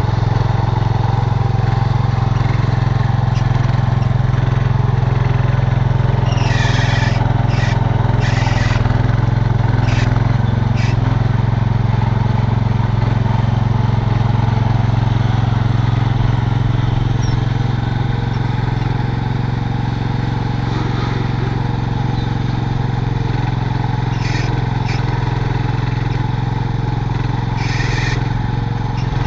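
1967 Cub Cadet 122 garden tractor's single-cylinder engine running steadily while it works its front loader, with a few short hissing bursts on top.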